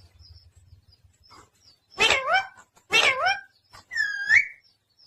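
Pet parrot calling: after a quiet couple of seconds, three short calls with swooping pitch, the last one higher and more whistle-like.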